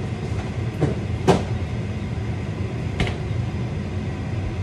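Steady low rumble of a kitchen fan running, with a few sharp clicks and knocks of kitchen items being handled, the loudest about a second in.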